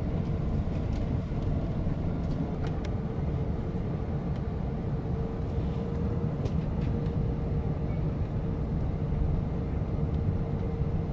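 Airbus A380 cabin noise while taxiing: a steady low rumble of the engines and of the aircraft rolling, with a faint steady hum over it.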